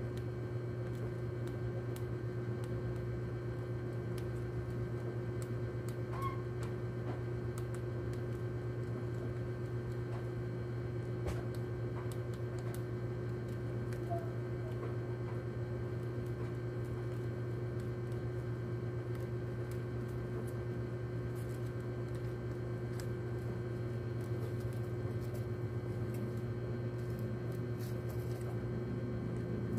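A steady low hum throughout, with faint, scattered small clicks and crunches of a rat nibbling at poison bait pellets.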